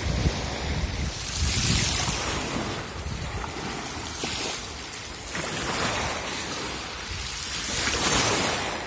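Small sea waves washing up over a pebble beach and drawing back: a hiss that swells and fades about every three seconds. Wind buffets the microphone, most strongly in the first second.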